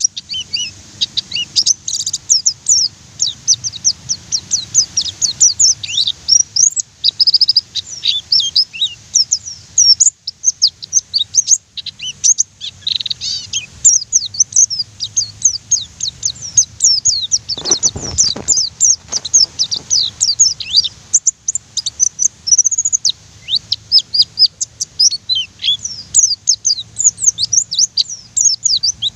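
White-eye (pleci) singing a fast, continuous chatter of short, high, mostly falling chirps, many per second, with only brief pauses.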